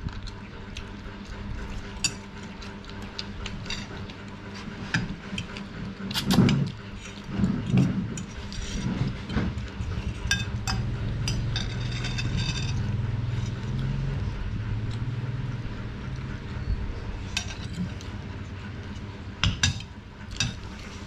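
Metal spoon clinking and scraping against a ceramic rice bowl during a meal: scattered light clinks, some louder ones near the middle, over a low steady hum.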